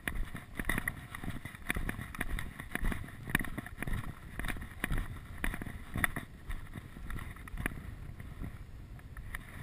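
Strong, gusty wind buffeting the microphone of a body-worn camera, with walking footsteps about twice a second.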